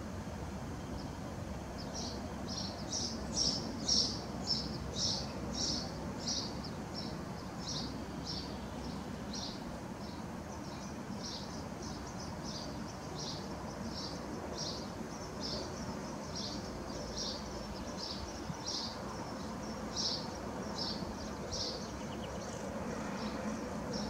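House sparrow chirping: a short single cheep repeated about twice a second, over a steady low background noise.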